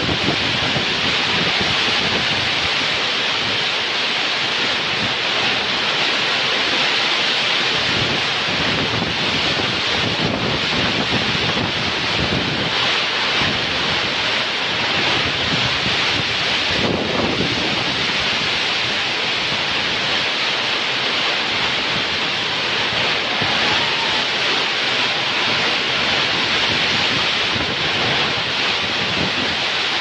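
Very heavy tropical downpour drumming steadily on a corrugated roof overhead, with strong wind gusting on the microphone.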